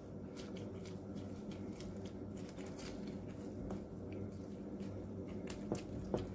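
Silicone spatula pressing soaked croissant slices down into egg-and-molasses custard in a glass baking dish: soft, wet squishing with scattered faint taps, over a steady low hum.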